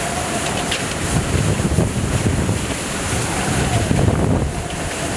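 Eyewall wind of a Category 4 hurricane blowing in heavy gusts and buffeting the microphone, with surges about two and four seconds in. A faint wavering whistle rides above it.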